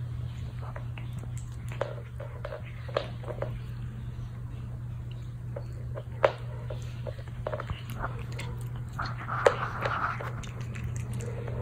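A cat licking and biting at a stick-shaped meat treat lying on the floor: scattered small clicks and mouth smacks as it struggles to get a grip on the stick, busiest about nine seconds in. A steady low hum runs underneath.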